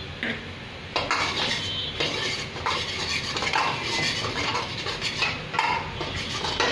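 A spoon stirring and scraping in a cooking pan, clinking irregularly against the metal from about a second in, mixing ground spices into the sauce.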